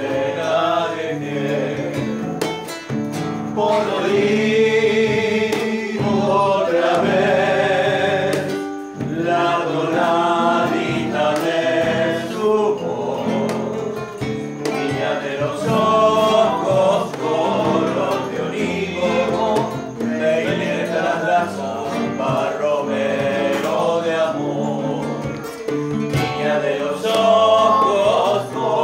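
Several voices singing a song together, accompanied by two acoustic guitars.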